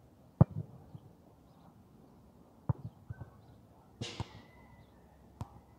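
Four dull thumps close to the microphone at uneven intervals, the first the loudest, with a short rustle about four seconds in.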